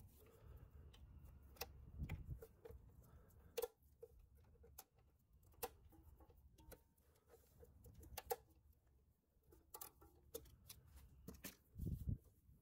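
Near silence broken by faint, scattered clicks and a couple of light knocks, from hand work with pliers on a transmission cooler line's hose clamp.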